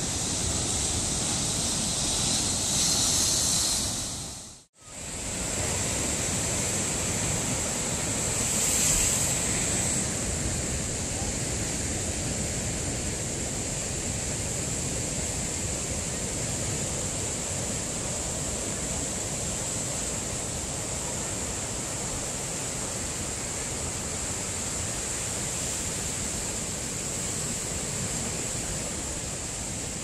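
Heavy ocean surf breaking on rocks and a beach: a steady, continuous rushing of water. The sound cuts out for an instant about five seconds in, then resumes.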